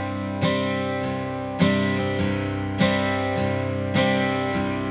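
Country song's instrumental break: acoustic guitar strumming chords, a new strum about every second and a bit, each left to ring.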